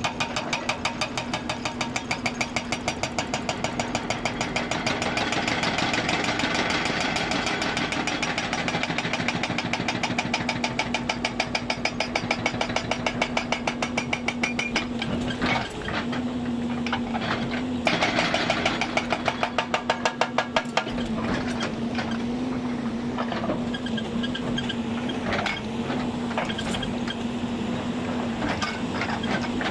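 Hydraulic breaker on a Hyundai 290 excavator hammering rock in rapid, even blows, over the excavator's steady engine hum. The hammering stops about 15 seconds in, runs again briefly around 18 to 21 seconds, then stops, leaving the engine running with scattered knocks.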